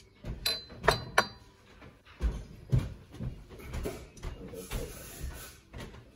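Ceramic crockery clinking as it is handled on a shelf: three sharp clinks with a short ring in the first second or so, then softer knocks and handling noise.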